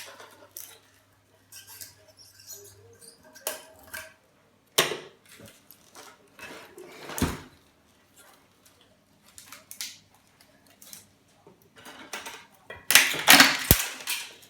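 Scattered clicks, knocks and rattles of metal and plastic parts being handled while an old Dell monitor is taken apart for scrap, with a denser burst of clatter and one sharp knock near the end.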